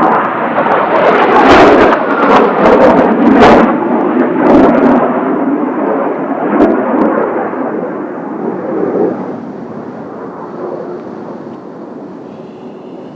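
Kawasaki T-4 jets of Blue Impulse passing overhead: a loud jet roar of their twin turbofans, loudest a second or two in with sharp crackles, then fading away over the last several seconds.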